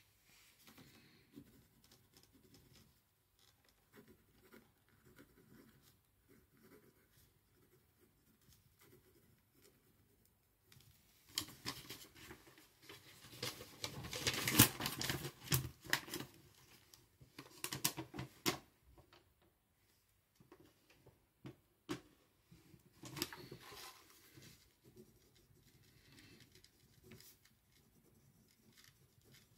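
Paper rustling and pages being turned, with small taps and scrapes on a desk; faint at first, then busier and louder from about 11 to 19 seconds in.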